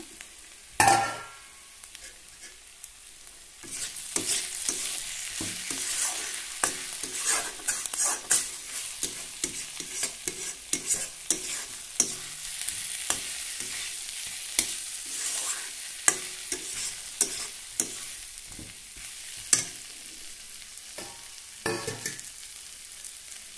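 A spatula stirs fried potatoes through masala frying in a kadhai, scraping and clacking against the pan over the sizzle of the oil. There is a sharp knock about a second in. The sizzling and clatter grow busier about four seconds in, ease off in the last few seconds, and two more sharp knocks come near the end.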